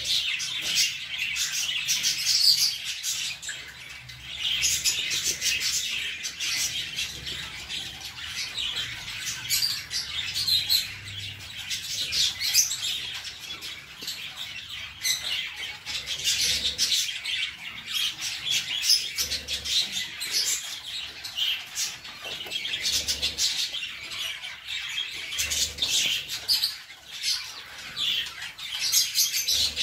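Small birds chirping and twittering continuously, many short high calls overlapping, with rustling.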